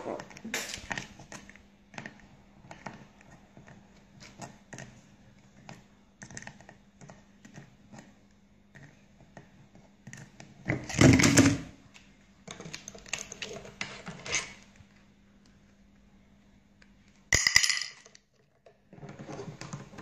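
Small hard objects clinking and clattering as an African grey parrot handles toy or game pieces, in irregular bursts with a louder clatter about 11 seconds in and another near the end.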